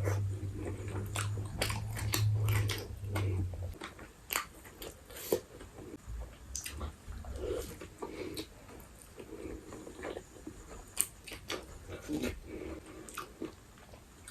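Close-miked eating: chewing and biting food, with many short sharp mouth sounds spread through. A low hum runs under the first four seconds, then stops.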